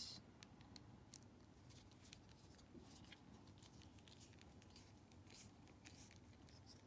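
Faint, irregular small clicks and scrapes of a small screwdriver turning a tiny screw into a plastic doll joint.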